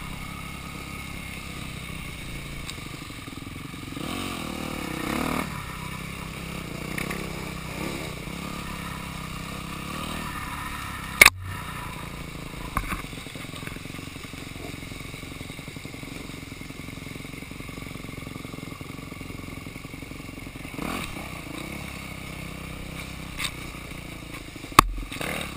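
Dirt bike engine running at low revs on a slow woods trail ride, with one rev that rises and falls about four seconds in. Two sharp knocks stand out, one near the middle and one near the end.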